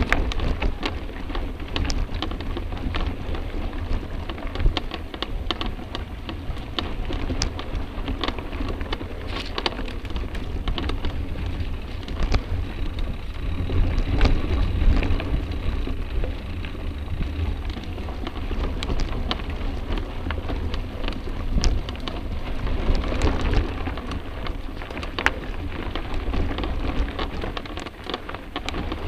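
Mountain bike riding noise picked up by an action camera on a rider: a steady low rumble of wind and trail noise on the microphone, with frequent sharp clicks and rattles as the bike jolts over roots and rocks on forest singletrack.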